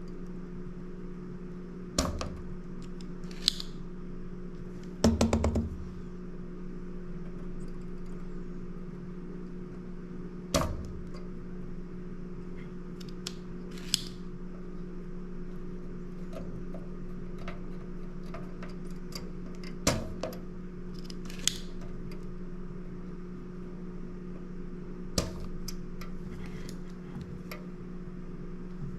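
Spring-loaded solder sucker (desoldering pump) being cocked and fired, giving sharp snaps a few seconds apart, about eight in all, over a steady low hum.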